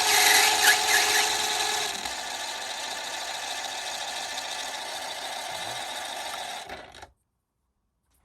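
Mini lathe running with a steady motor whine. It is louder for about the first two seconds, then runs on steadily and cuts off suddenly about seven seconds in.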